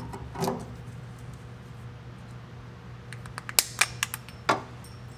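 A cluster of about five sharp metal clicks from a combination wire stripper/cutter being handled and closed on a wire to cut its old terminal off at the crimp, over a steady low hum.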